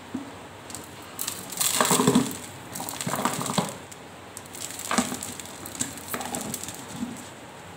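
Chopped raw mango pieces coated in chili powder, mustard powder and salt being pushed by hand off a steel plate into a plastic tub: irregular bursts of scraping and shuffling, with a sharp click about five seconds in.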